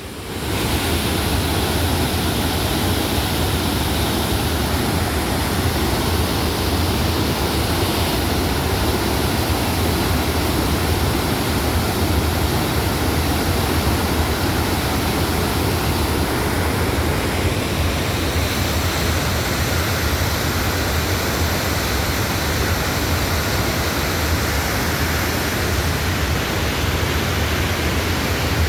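Waterfall and fast-flowing river water rushing in a loud, steady wash of noise that swells up suddenly right at the start.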